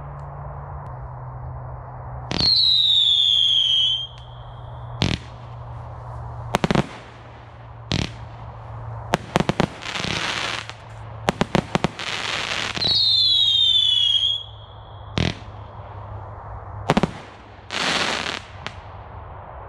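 Consumer firework barrage cakes firing. Two long, loud whistles each fall slightly in pitch, and a scattered run of sharp bangs from shots and bursts comes between them, with short bursts of crackling hiss.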